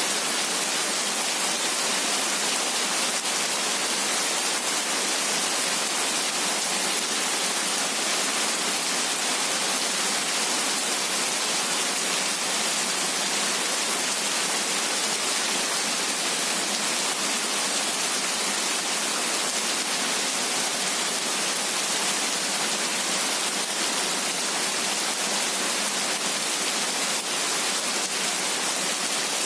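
Heavy rain falling steadily: an even, unbroken hiss with no thunder and no single drops standing out.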